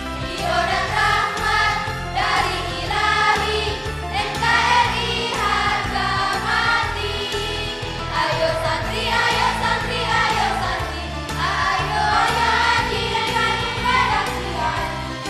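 Choir of mixed voices singing together over an instrumental accompaniment with steady, held bass notes.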